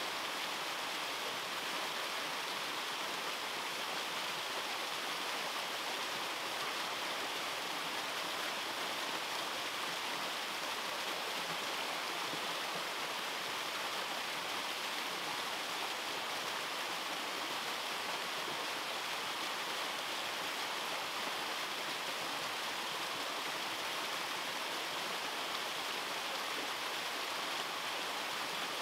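Small waterfall: water pouring down rock in two falls, a steady, even rushing sound with no change.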